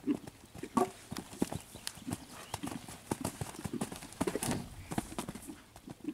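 Horse cantering under a rider on a sand arena: a dense run of hoofbeats and clinks, loudest a little past the middle, over the horse's regular low blowing about every half second in time with its stride.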